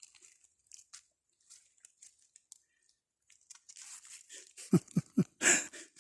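Soft, scattered crunching and rustling, then a few short, loud sounds about five seconds in.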